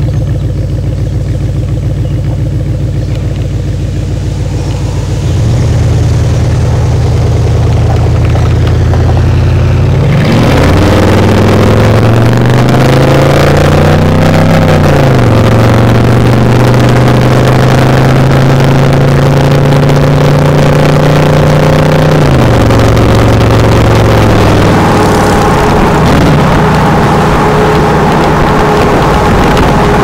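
Ford F-150's 4.6 L V8 exhaust heard right at the tailpipes: idling, then pulling away. About ten seconds in, road and wind noise rise, and the engine note climbs and drops back before settling into a steady cruise. The note falls again a little past twenty seconds in.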